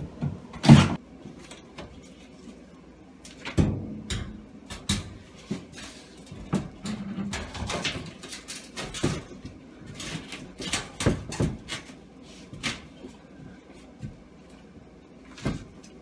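Irregular knocks, bumps and scrapes of a cement backer board panel being lifted and set against wood studs, with the loudest thump about a second in.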